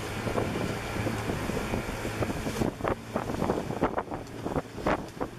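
Motorized river canoe under way: its engine running steadily with a low hum, and wind buffeting the microphone in repeated gusts.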